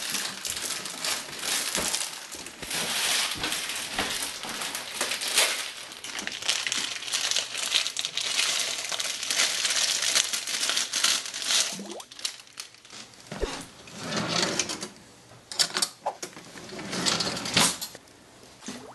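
Plastic instant-ramen wrapper crinkling and tearing as it is opened and handled, a dense crackle that breaks into separate short crinkles in the second half.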